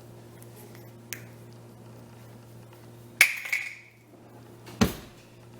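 Household clatter over a steady low hum: a small click about a second in, then a sharp clink with a brief ring about three seconds in, and a dull knock near the end.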